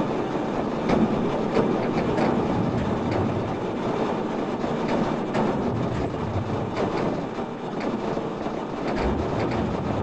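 Sonified earthquake record of seven years of seismicity around Japan: a steady noise dotted with many short, sharp pops, each pop an earthquake turned into sound.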